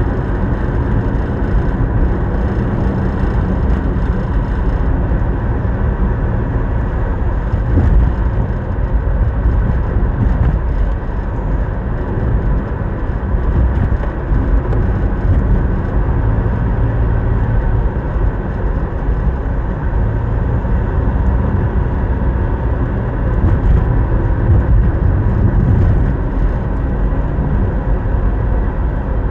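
Steady road and engine noise of a car driving, with the low rumble strongest throughout.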